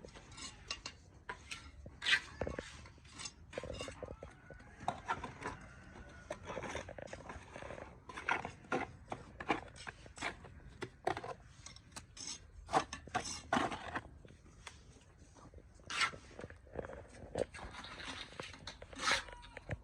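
Irregular clicks, taps and knocks with some scraping, a few of them loud and sharp.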